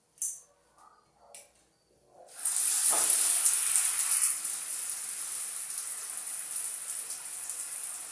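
A few short faint knocks, then about two seconds in water starts running hard: a steady rushing spray, like a tap or shower turned on full, which eases slightly after a couple of seconds.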